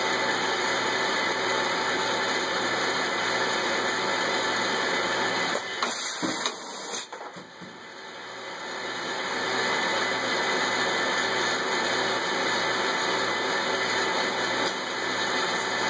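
Machinery of an automated laser-marking cell running with a steady hiss and low hum. About six seconds in it drops away for a couple of seconds with a few clicks, then builds back up smoothly over about two seconds.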